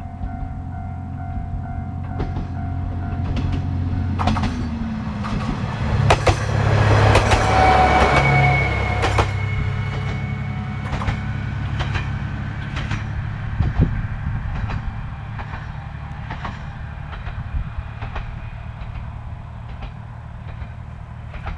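A diesel railcar passes over a level crossing, its engine droning loudest a few seconds in, with wheels clicking over the rail joints as it goes, then fading away. A steady pulsing crossing-alarm tone stops about four seconds in, just before the train arrives.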